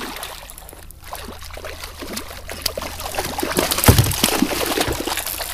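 Water splashing as a hooked trout thrashes at the surface right beside the boat, building up and loudest in the second half, with a single thump about four seconds in.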